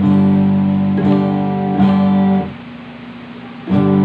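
A guitar plugged into a small USB mixer and heard through its monitor speaker: three strummed chords in the first two and a half seconds, a pause, then strumming again near the end. The sound shows that the channel now passes the guitar with its selector switched off USB to the line input.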